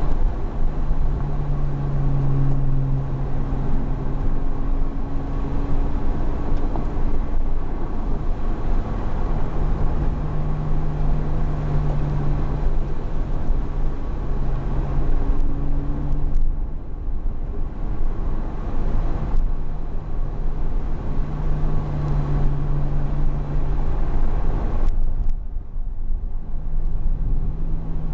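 Porsche Cayman S flat-six engine and tyre rumble heard from inside the cabin while cruising. The engine note holds a steady pitch, with two brief lulls, one about midway and one near the end.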